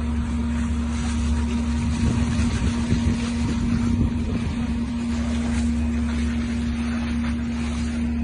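An engine running steadily, a constant hum over a low rumble, a little louder and rougher between about two and four seconds in.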